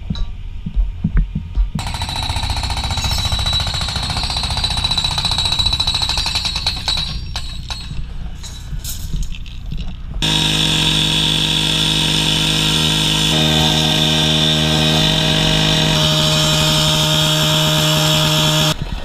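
Cut-off saw with an abrasive disc cutting steel scaffolding tubes. It grinds for a long stretch, there are a few knocks and clinks of tube being handled, and then a second long steady stretch.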